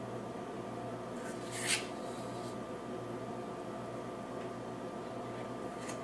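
A small metal tool scraping briefly on a tin can, once about one and a half seconds in and more faintly twice later, over a steady electrical hum.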